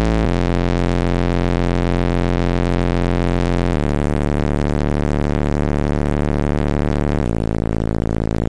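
Bass test tone from a car-audio system with four 12-inch Focus Acoustics subwoofers, played at about 145–150 dB inside a VW Golf IV during an SPL measurement. It is a loud, steady tone that jumps to a new pitch a third of a second in, again near four seconds and near seven seconds.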